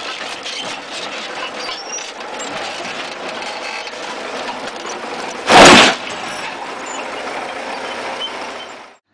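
A crawler tractor's diesel engine running with clattering steel tracks as it comes down off a truck over logs, with one loud crash lasting about half a second a little past halfway through.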